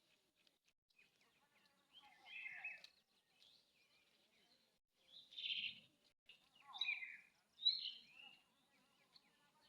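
Birds calling in four short, separate bursts, the loudest two close together near the end, over a faint outdoor background.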